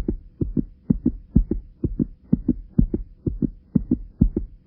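Heartbeat sound effect: deep paired thumps, a lub-dub about twice a second, over a faint steady hum.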